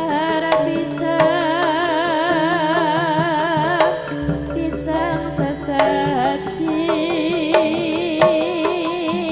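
Javanese gamelan music for a Remo dance: a high voice sings a long, wavering melody with wide vibrato over sustained metallophone tones, punctuated by sharp drum strokes.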